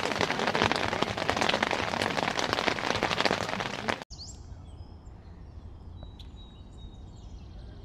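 Heavy rain falling, a loud, dense patter of drops that cuts off abruptly about four seconds in. After the cut there is a quiet background with birds chirping.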